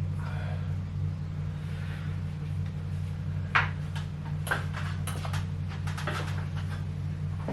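Knocks and rattles from handling the garage door opener's metal rail as it is taken down, the sharpest about three and a half seconds in, with several lighter ones after it, over a steady low hum.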